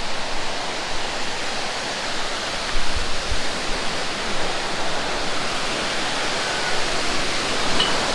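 Steady rush of falling water from the Ravana Ella waterfall, with a brief low thump about three seconds in.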